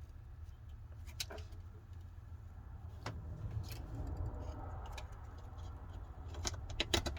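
Light clicks and taps of a smartphone's main board and small parts being handled and fitted into the phone's frame, a few scattered and a quick cluster near the end, over a steady low hum.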